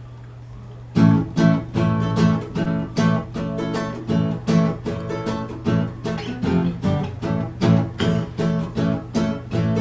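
Acoustic guitar playing the instrumental opening of a song. It comes in about a second in, with chords picked and strummed in a steady rhythm of about two strokes a second.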